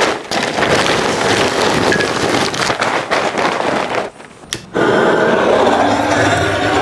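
Charcoal poured from a bag into a steel smoker firebox, the lumps clattering for about four seconds. After a short pause and a click, a handheld gas torch is lit and hisses steadily into the firebox to light the charcoal.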